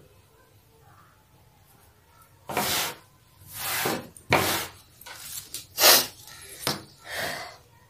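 Hands folding and smoothing blouse lining cloth flat on a table. After a quiet start, about seven short rustling, swishing strokes of the cloth.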